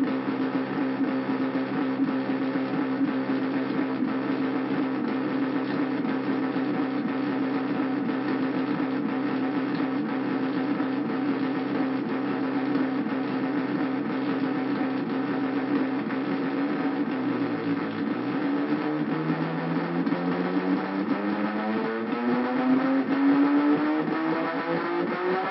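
Hand-made Arduino drone synthesizer sounding a steady, buzzing drone of several stacked tones. About two-thirds of the way through, the pitch dips and then glides steadily upward.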